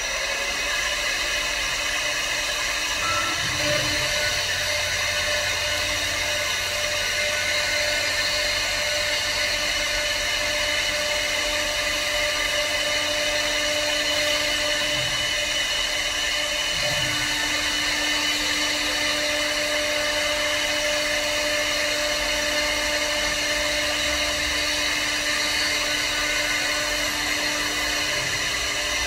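CNC wood turning lathe running, its high-speed cutter head whining steadily as it cuts along the spinning wooden blank.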